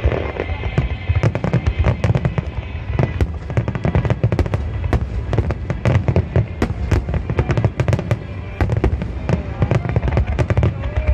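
Fireworks display in a dense barrage: many sharp bangs a second from bursting shells and crackle, over continuous deep rumbling booms.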